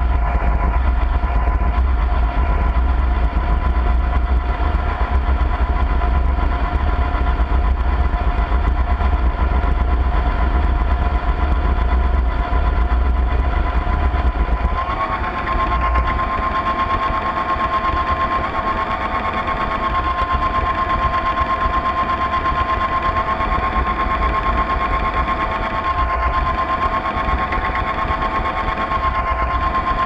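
Radio-controlled model tug's drive motor and Voith Schneider propeller gearing, heard through the hull, running with a steady whine of two tones over a low rumble. About halfway through, the whine steps slightly higher and stronger while the rumble eases.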